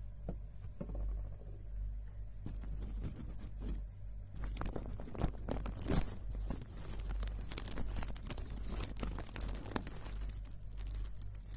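Clear plastic packaging around a grey, bumpy item being crinkled and rubbed by hand right at the microphone: sparse crackles at first, then dense, louder crinkling from about four seconds in, over a low steady hum.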